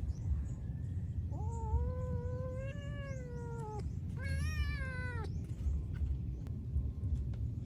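Kitten meowing twice: first a long, drawn-out meow, then a shorter, higher one, over a steady low background rumble.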